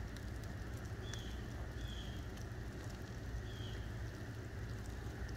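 Small fire of cardboard and paraffin wax burning in a cookie-tin firepit, crackling with a steady patter of small pops. A few short, faint high chirps sound over it.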